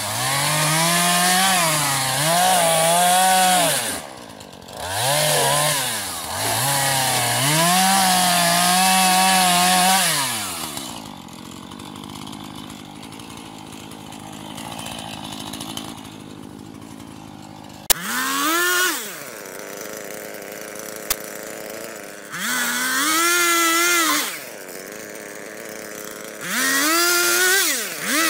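Husqvarna 440 two-stroke chainsaw cutting branches off a fallen tree, revving up and dropping back in repeated bursts of a second or two. Midway it runs more quietly at idle for several seconds, then a sharp click, and it revs in three more short bursts, the last ones higher-pitched.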